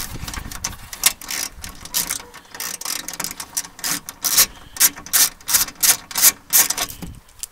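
10 mm socket ratchet wrench clicking in quick, uneven runs as it is swung back and forth to loosen a bolt.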